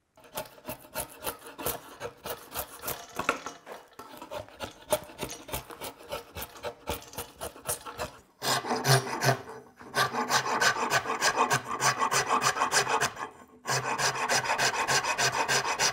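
Hand rasp scraping back and forth along an osage orange bow stave in quick, rhythmic strokes. The strokes grow louder about halfway through, with a brief pause near the end.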